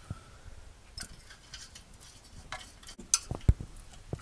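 Light metallic clicks and taps of small bolts and hand tools being handled on a diesel engine, with a couple of sharper knocks about three seconds in.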